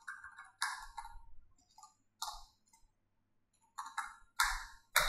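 Computer keyboard being typed on: irregular clusters of key clicks, with a pause of about a second and a half in the middle and a quicker run of keystrokes near the end.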